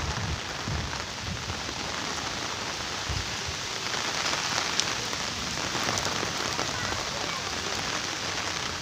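Steady rain falling on a wet, puddled courtyard: an even hiss of drops on water and mud.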